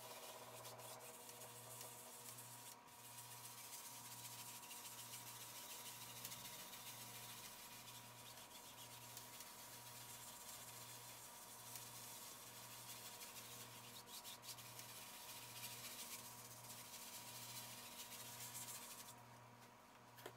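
Faint scrubbing of a wide bristle brush rubbed back and forth over canvas, blending wet oil paint; it stops about a second before the end. A low hum pulsing about once a second runs underneath.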